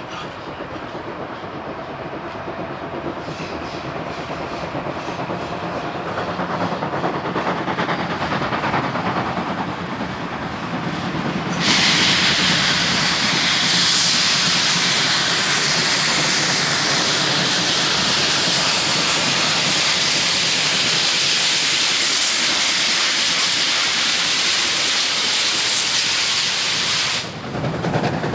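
Class 52 two-cylinder 2-10-0 steam locomotive starting away under load with a heavy train, growing louder as it comes closer. About twelve seconds in a loud, steady hiss of steam venting from its cylinder drain cocks starts suddenly and holds until it cuts off near the end.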